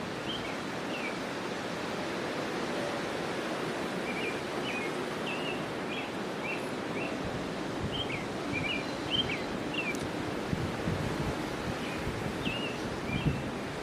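Steady outdoor noise with many short, high bird chirps scattered through it.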